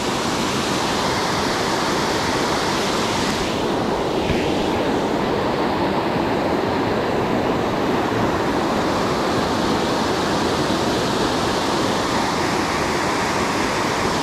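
Whitewater cascade of a mountain creek running high, rushing steadily down a rock chute.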